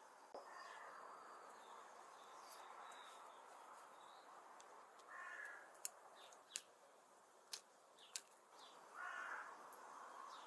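Sugar cubes dropped one by one into a stainless steel teapot: four sharp clinks about a second apart, a little past halfway. A bird calls twice in the background; otherwise near silence.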